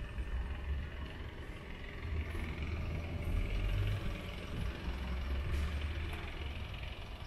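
Outdoor urban street ambience: a low, uneven rumble with a steady background hiss.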